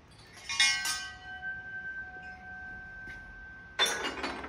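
Aluminum tone bars of a Deagan Imperial 55 vibraharp clinking together as a strung set is lifted, about half a second in; one bar keeps ringing with a steady tone for about three seconds. Near the end the bars clatter against each other and the frame as they are brought down onto it.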